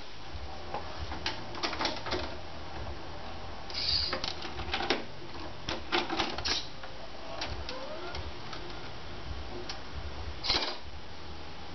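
VHS video recorder's tape mechanism at work: a run of irregular clicks and clunks with two short whirs, about four seconds in and again near the end, under a steady low hum, as the cassette loads before playback.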